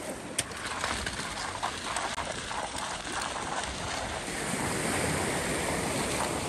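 Wind buffeting the microphone over the wash of choppy sea against a harbour pier, with a few short scuffs and taps in the first half and the hiss growing a little louder in the second half.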